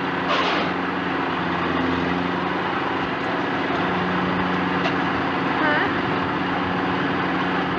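Engine of a small 1967 two-row corn combine running steadily at a constant speed, a continuous even hum.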